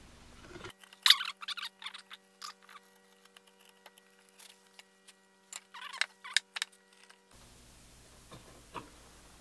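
A fine-bevel Swiss carving chisel paring cedar end grain by hand, making a series of short, crisp slicing strokes. The sharpest stroke comes about a second in, and another quick cluster follows around six seconds.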